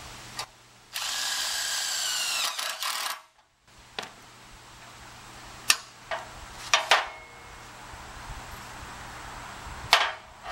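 Power drill with a driver bit running for about two seconds, its motor pitch bending as it drives a fastener. Several short, sharp knocks and clicks follow later.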